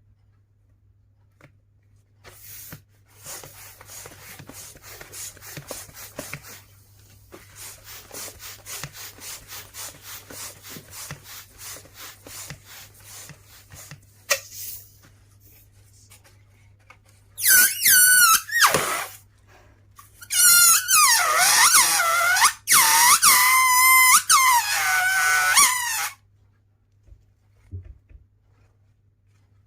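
A rubber balloon being inflated in short, evenly repeated strokes, then loud rubber squeaks and squeals from the taut balloon, bending up and down in pitch.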